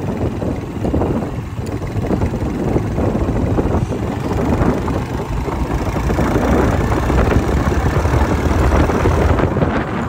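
Motorcycle engine running while riding, with wind buffeting the microphone; it grows a little louder in the second half.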